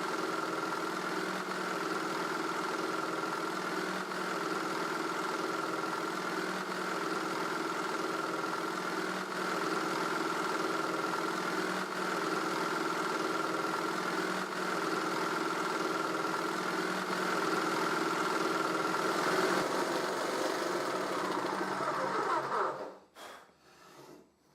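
Electric jigsaw, mounted under a plywood table with its blade held between bearing guides, running steadily with a constant hum, then stopping near the end.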